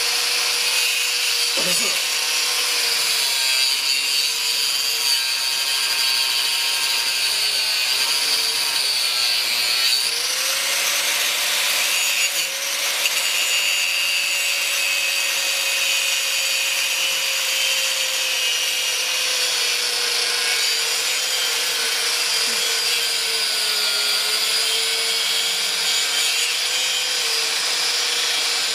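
DeWalt angle grinder cutting into a rusty steel truck frame, running without a break, its motor pitch wavering as the disc bites and eases off.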